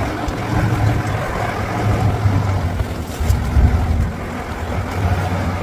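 A motor vehicle's engine running with a steady low rumble under a rushing, noisy hiss.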